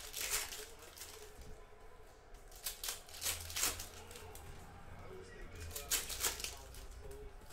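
2020-21 Panini Hoops trading cards being handled and flicked onto a stack, with the crinkle of foil pack wrappers: a few short swishes and clicks in small clusters, near the start, about three seconds in and about six seconds in.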